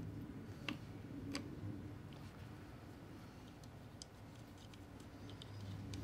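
Faint small clicks and ticks from hand-fitting the crank onto a Mitutoyo height gage's head, two sharper clicks in the first second and a half, then lighter scattered ticks, over a low steady hum.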